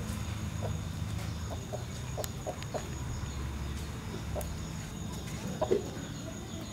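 Rooster clucking in short, scattered clucks, with a few louder ones near the end, over a steady low rumble.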